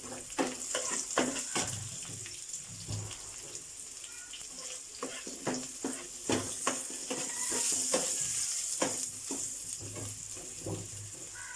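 Dried red chillies, shallots and curry leaves sizzling in hot coconut oil in a pan as they roast, with a spatula stirring and scraping them, clicking against the pan many times.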